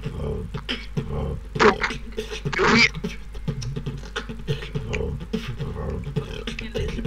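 Human beatboxing: a fast rhythmic stream of mouth-made clicks, pops and kick-drum thuds, with louder hissing snare-like accents about a second and a half and two and a half seconds in.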